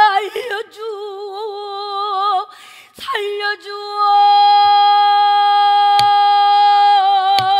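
A woman singing pansori: a wavering phrase with heavy vibrato, a short break, then one long steady high note held for several seconds. A buk barrel drum is struck three times behind the voice.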